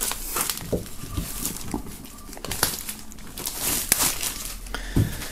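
Plastic shrink-wrap film crinkling and crackling as it is peeled off a cardboard box by hand, in irregular rustles and small crackles.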